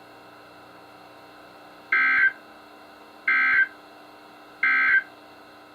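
Three short bursts of EAS digital data warble from a NOAA Weather Radio broadcast, about 1.3 s apart, over a steady low radio hiss. These are the end-of-message code that closes the warning.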